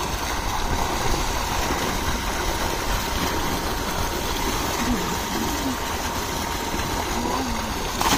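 Tubewell water gushing from a large discharge pipe into a concrete tank, a steady rushing rumble. A loud splash comes right at the end as a bather dives in.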